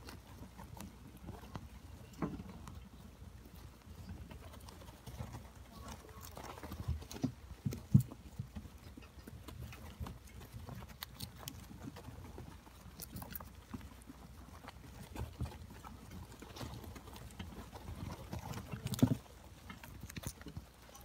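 Hamsters scrabbling about in wood-shaving bedding: faint, irregular rustles and light taps, with a few louder thumps, the sharpest about eight seconds in and another cluster near the end.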